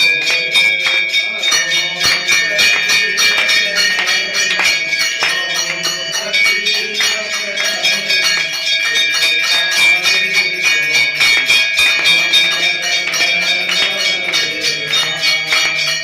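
Hindu temple aarti: bells rung in rapid, continuous strokes, their steady ringing tone held throughout, with voices singing over them.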